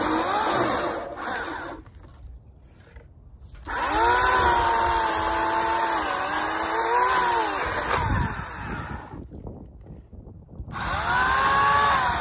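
Homelite 14-inch 9-amp electric chainsaw cutting a fallen locust limb, its motor whine rising and dipping in pitch as the chain bites into the wood. It stops twice, about two seconds in and again around nine seconds, starting up again each time.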